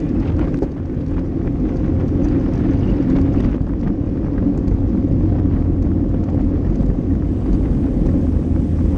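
Wind buffeting the microphone of a handlebar-mounted action camera on a road bike at racing speed: a loud, steady low rumble, mixed with road noise from the tyres.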